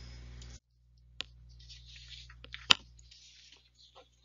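A few sharp computer mouse clicks, the loudest nearly three seconds in, with faint rustling between them; a steady background hum cuts off suddenly just over half a second in.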